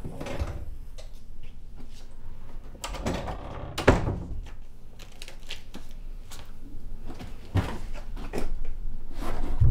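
Irregular clicks and knocks of objects being handled and moved about, with a sharper knock about four seconds in.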